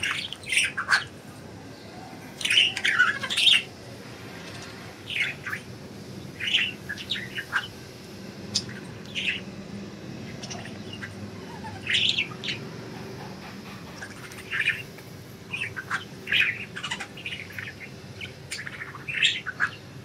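Budgerigars chirping: short high calls every second or so, some in quick runs.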